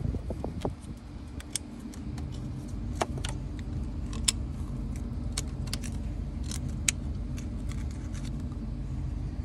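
Sharp plastic and metal clicks from diesel fuel-injector electrical connectors and return-hose clips being worked loose by hand, scattered irregularly over a steady low hum.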